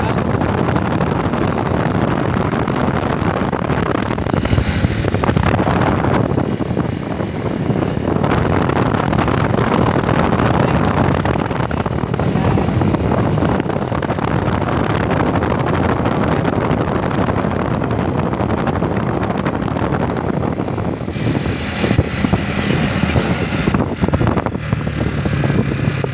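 Wind rushing over the microphone and road noise of a motorcycle travelling at speed, a steady loud rush; near the end a steady low engine hum comes through.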